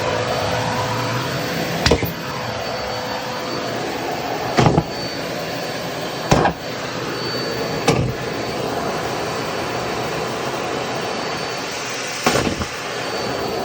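Vacuum cleaner running steadily while sucking up scraps of latex glove. Five short, loud bursts break through the steady noise, spaced irregularly.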